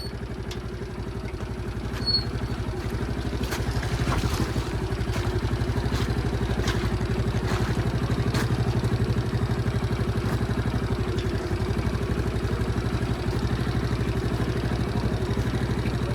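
Motorcycle engine idling steadily, with a few sharp clicks a few seconds in.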